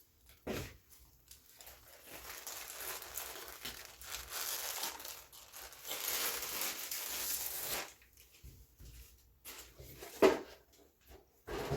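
Packaging around a memory foam pillow being torn open and crinkled by hand, a continuous rustling tear for several seconds, then a few light handling clicks and one sharp knock near the end.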